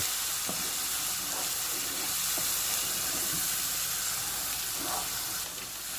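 Onion, ginger-garlic and spice masala frying in oil in a pan, a steady sizzle.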